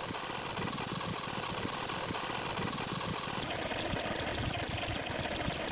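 Aerosol spray-paint can spraying with a steady hiss. About three and a half seconds in, the sharpest, highest part of the hiss drops away and a softer hiss carries on.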